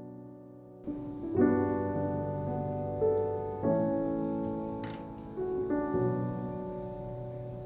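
Soft solo piano background music, slow chords and single notes.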